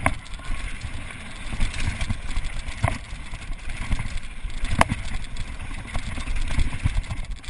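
Mountain bike riding fast down a gravel trail: tyre and rattle noise with wind buffeting the microphone, and sharp knocks from bumps about three and five seconds in.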